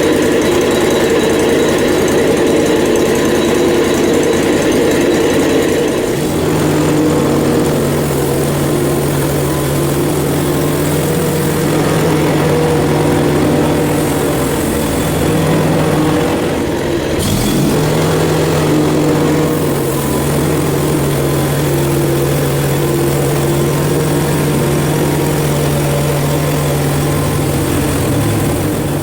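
Hud-son HFE30 portable bandsaw mill running, its band blade sawing a slab off a red oak log. The steady engine note changes about six seconds in and stays even after that.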